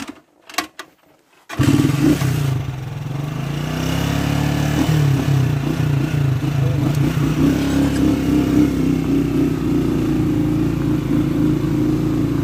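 Motorcycle engine running steadily under way, cutting in suddenly about a second and a half in after a few quiet clicks.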